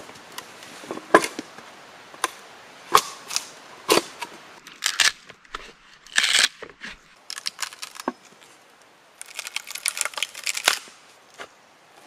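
A mallet striking a splitting blade set into dry oak to cleave roof shingles: about half a dozen sharp, irregularly spaced knocks, then a quick run of small crackles near the end.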